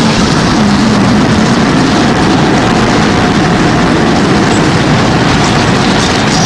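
Sound effect of being inside a strong tornado: loud, steady rushing wind with no letup, carrying a faint low hum.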